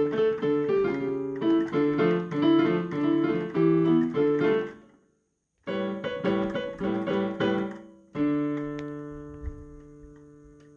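Digital piano played: a quick run of notes, a brief silence about five seconds in, another short phrase, then a final chord struck about eight seconds in and left to ring out and fade, ending the piece.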